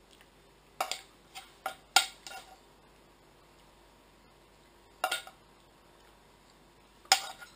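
Metal kitchen tongs clacking against a frying pan and against each other while picking up fried onion and kebabs: a quick cluster of sharp clinks in the first couple of seconds, then two single clinks later.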